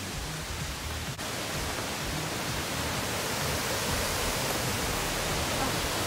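Steady rush of water from a mountain stream and cascades along the trail. There is a brief break about a second in, after which it is a little louder.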